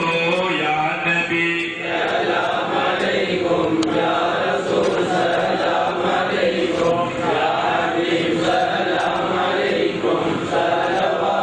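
A group of voices chanting a devotional Madh song in praise of the Prophet in unison, joining a single voice about two seconds in.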